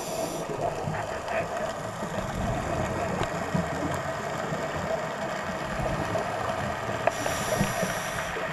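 Muffled underwater noise with scattered faint clicks and crackle. About seven seconds in, a hissing breath through a diver's scuba regulator comes in and lasts to the end.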